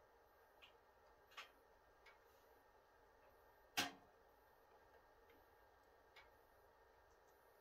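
A handful of sparse, irregular pops and crackles from a wood fire burning behind the closed glass door of a Kuma wood stove, the loudest pop about four seconds in.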